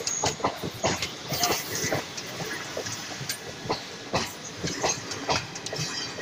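Indian Railways passenger coaches rolling past a platform, their wheels clattering over rail joints in a run of irregular sharp clacks over a steady rumble.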